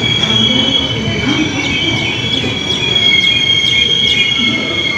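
Steel wheels of a passenger train squealing in a steady high two-note whine over the rumble of the running coaches.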